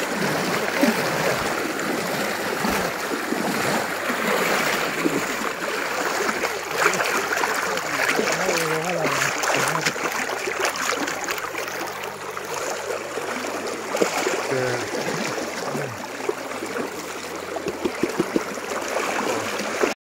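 Shallow river water rushing and splashing around legs and a mosquito net being hauled through the current, with scattered sharper splashes.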